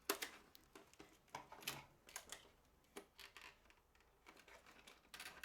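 Faint, scattered clicks and rustles of hands handling toy packaging, working at the rubber ties that hold a water gun in its box.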